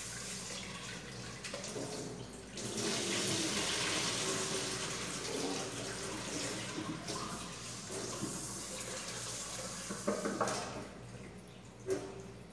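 Kitchen tap running into a rice cooker's inner pot as rice is washed in it, the water swishing in the pot. The running water ends about ten seconds in, followed by a few knocks of the pot against the sink, the sharpest near the end.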